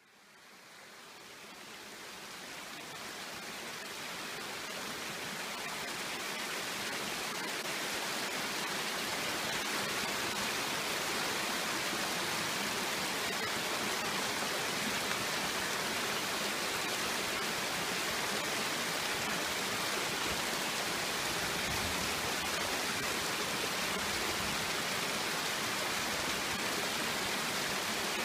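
Shallow stream rushing over rocks: a steady hiss of running water that swells over the first several seconds, then holds level.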